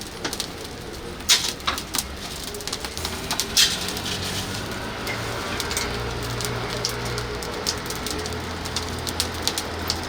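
Oak-wood fire crackling, with irregular sharp pops over a steady hiss.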